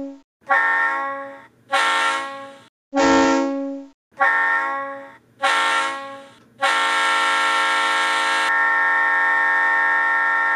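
Digitally sampled Leslie RS-3L three-chime diesel locomotive horn played back by ESU LokSound DCC sound decoders through the speakers of HO-scale model locomotives and a PC sound card: six short toots of about a second each, then one long held blast from about two-thirds of the way in. The long blast turns duller about eight seconds in.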